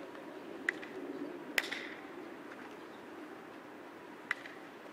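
Baseball thrown into leather gloves: three short, sharp pops, one under a second in, a louder one at a little under two seconds, and a faint one near the end, over a faint steady outdoor background.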